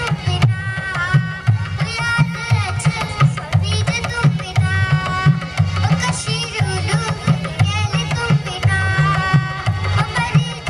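A girl singing a Garhwali folk song into a microphone, with a dholak and a smaller two-headed hand drum beating a steady rhythm under her voice.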